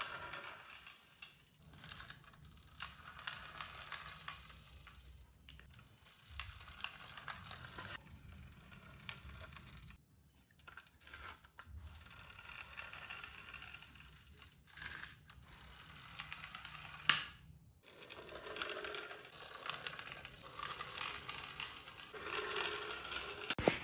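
Pull-back friction motors of toy fire trucks clicking rapidly as the trucks are pulled back and released to roll across a tiled floor, in several short runs with breaks between them. There is a single sharp knock about seventeen seconds in.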